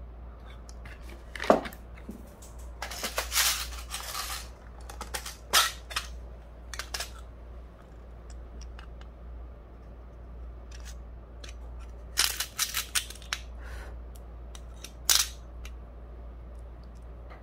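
Handling noise from a clear plastic compartment case of metal nail charms: scattered sharp plastic clicks and taps, with a stretch of rustling a few seconds in. The loudest click comes about a second and a half in, and a quick run of clicks comes about two thirds of the way through. A faint steady low hum runs underneath.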